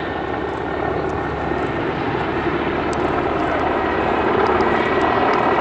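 Mi-8-type twin-turbine helicopter flying low past: steady rotor and turbine noise that grows slowly louder, with a faint high turbine whine coming in near the end.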